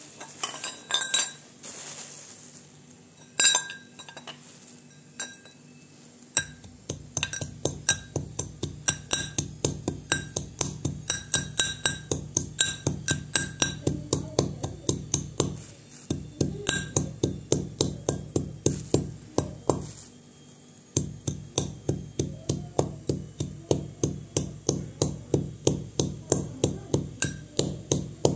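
Brass pestle pounding walnuts in a brass mortar: a steady run of sharp, ringing metallic strikes, about three a second, with two short pauses. Before the pounding starts there are a few separate clinks.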